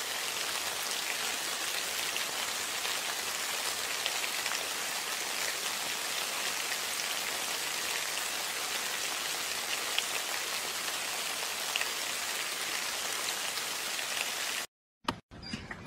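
Steady rain pattering, an even hiss with scattered light drops, cutting off suddenly about a second before the end.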